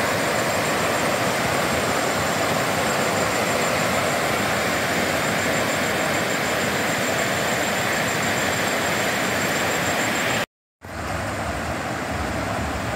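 Floodwater rushing through river rapids, a steady, loud noise of churning water. About ten seconds in it cuts out for a moment, then the rushing resumes a little quieter with a low rumble.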